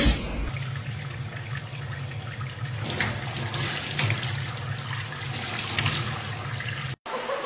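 Tap water running from a faucet into a stainless-steel sink, splashing over a small wet monkey sitting under the stream. It cuts off abruptly near the end.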